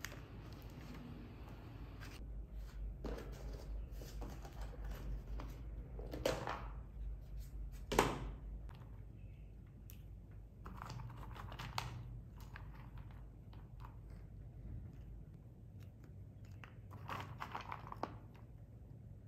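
Small tabletop handling sounds: a yogurt pot's foil lid handled, then mixed nuts picked out of a plastic tub and dropped onto the yogurt, giving scattered light clicks, taps and rustles over a low steady hum. One sharper click comes about eight seconds in.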